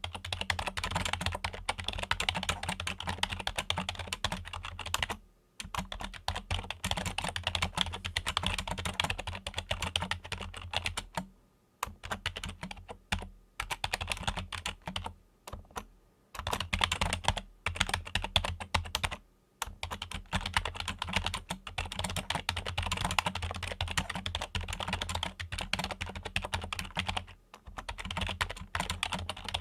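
Fingers typing fast on a Logitech computer keyboard: dense runs of key clicks, broken by a few short pauses.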